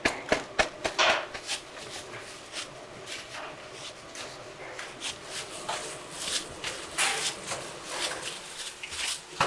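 Knocks, clicks and rustles of ingredients being handled at a stainless-steel mixer: a sack of flour emptied into the hopper, then mashed sweet potato tipped and scraped off a metal bowl onto it. The knocks come thickest in the first second or so, then scattered.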